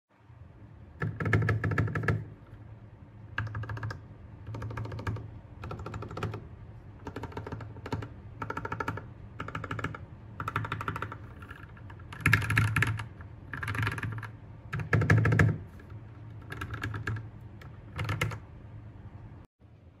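Typing on a modded mechanical keyboard, in about a dozen short runs of rapid keystrokes with brief pauses between them. Its owner calls the sound not so thocky.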